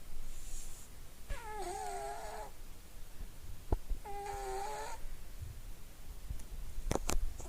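Overweight house cat snoring. Each breath gives a pitched, whining note about a second long, coming roughly every two and a half seconds: two in full, with a third starting at the very end. A few sharp clicks fall between them.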